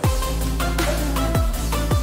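Electronic dance music with a heavy bass line that drops in at the start, and falling bass swoops about a second and a half in and again near the end.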